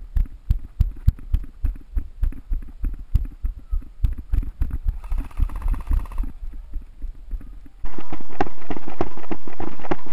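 Running footsteps thudding at about four steps a second, with gear jostling at each stride. About five seconds in comes a brief burst of rapid airsoft gun fire. Near the end the sound turns suddenly louder and brighter, with the running rhythm continuing.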